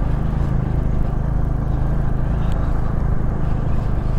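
Bajaj Dominar 250 single-cylinder motorcycle engine running steadily under way, under a constant rush of wind and road noise.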